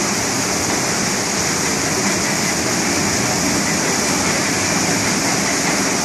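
Steady rushing of water pouring down a log flume's chutes and channels into the splash pool.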